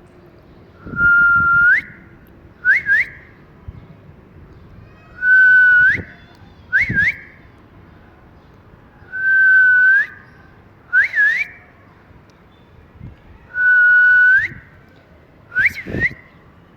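Ring-necked parakeet whistling a learned phrase over and over: a long held note that flicks upward at the end, then two quick rising chirps about a second later. The phrase comes four times, about every four seconds.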